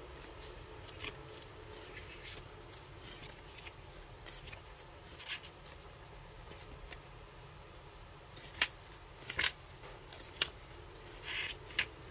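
Paper being handled, most likely the pages of a paperback guidebook being turned: scattered soft rustles and clicks over a steady low background, with several sharper ones in the last few seconds.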